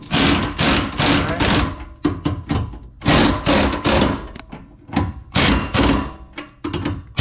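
Rapid run of sharp metallic impacts, about three a second, as a swage-lock bolt on a tandem-axle trailer's suspension is driven in.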